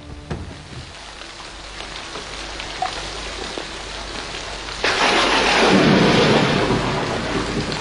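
Steady rain falling, with a loud clap of thunder about five seconds in that rumbles on and slowly dies away.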